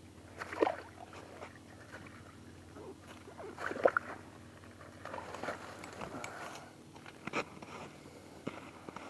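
Scattered knocks, clicks and rustling as a hooked walleye is brought up through an ice-fishing hole and handled, loudest about half a second and about four seconds in. A faint steady low hum runs underneath.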